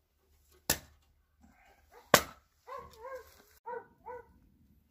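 Two sharp metal knocks from the steel lid of a smoker box being put on, followed by a dog barking four short times.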